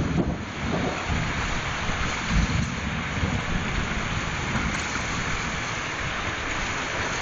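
Summer thunderstorm: steady rain with wind, and low rumbles in the first few seconds as thunder dies away.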